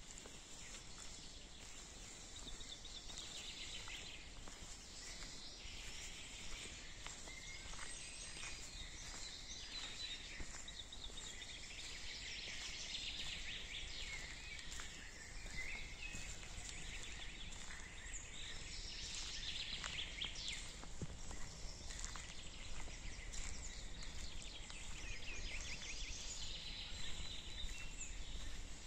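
Forest ambience: small birds singing rapid trilled phrases every few seconds over a steady high hiss, with occasional soft footsteps on the path.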